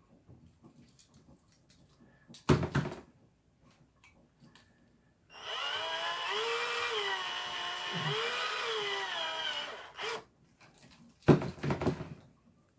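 Electric drill running for about four seconds, its pitch dipping twice as the bit bites into the rivet head on a die-cast toy car's base. Short knocks and clatter come shortly before and after it.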